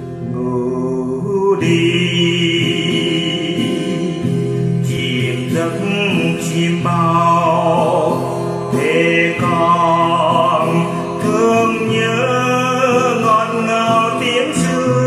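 A voice singing a Vietnamese song to acoustic guitar accompaniment, the voice coming in about a second and a half in.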